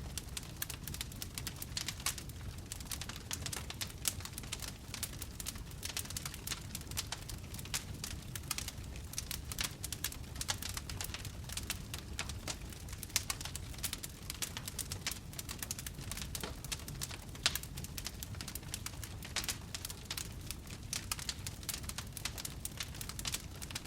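Fire crackling: dense, irregular pops and snaps over a low steady rumble of burning, with a few louder pops.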